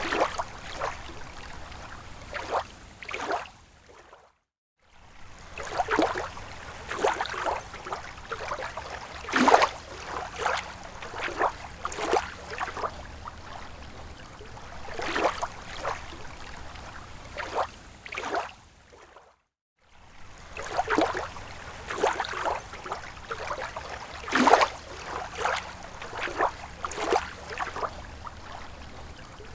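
Water lapping and gurgling in irregular small splashes, cut off twice by brief gaps of silence, about four and a half and nineteen and a half seconds in.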